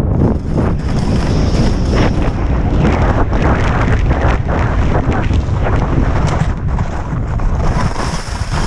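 Wind buffeting the microphone of a helmet-mounted camera during a fast ski descent, with skis scraping and chattering over hard, tracked snow in many short rattles.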